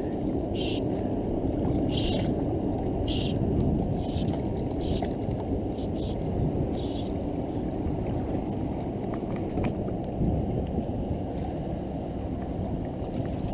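Sinking fly line being stripped in by hand through the rod guides while playing a hooked fish, making a run of short hissing zips roughly once a second through the first half. Under it, a steady low rumble of wind on the microphone and water against the jetty rocks.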